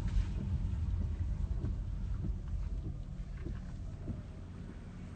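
Low, steady rumble of a car's road and engine noise heard inside the cabin while driving on a wet road, growing quieter near the end.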